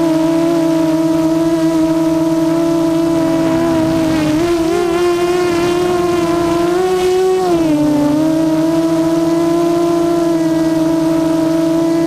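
Small multirotor drone's electric motors and propellers whining steadily. The pitch rises about four seconds in, holds, and falls back near eight seconds as the motors speed up and slow down.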